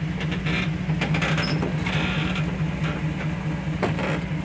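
Off-road vehicle's engine running steadily with a low, evenly pulsing drone while driving along a grass trail, with scattered short rattles and brushing noises over it.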